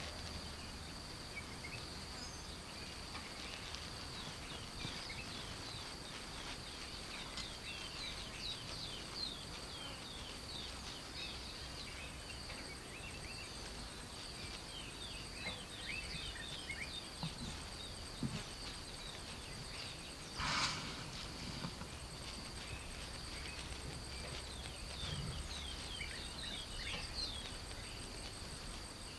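Bush ambience: a steady high-pitched insect drone with frequent short chirps of birds calling. About twenty seconds in there is one brief, louder rushing burst.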